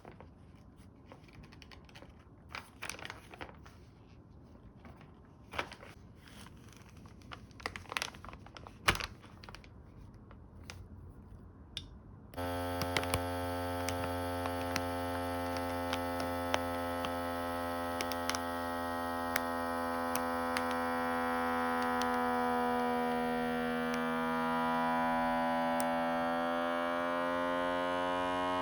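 Scattered light clicks and taps of handling, then about twelve seconds in a small electric vacuum-sealer pump switches on abruptly and runs with a steady hum whose pitch drifts slightly.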